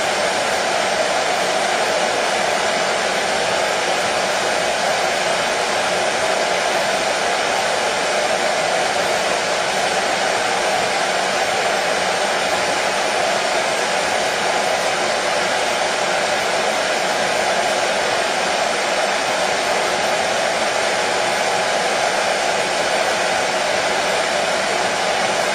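Hair dryer running continuously at a steady speed: an unchanging whooshing hum of airflow and motor, played as soothing white noise for a colicky baby.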